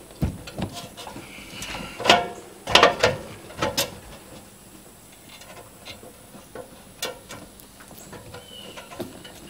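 4-inch schedule 40 PVC pipe being forced and twisted into a rubber Uniseal adapter in a plastic tank wall, giving irregular clicks, knocks and short squeaks, loudest two to four seconds in, then fainter. The fit is very tight.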